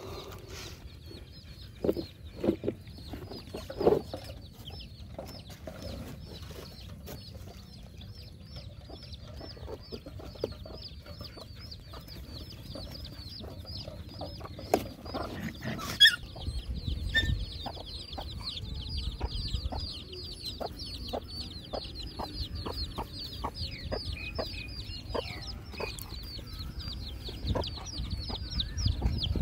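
Puppies eating food scattered on the ground, with short clicks and crunches of chewing, over a steady, rapid high chirping of birds in the background.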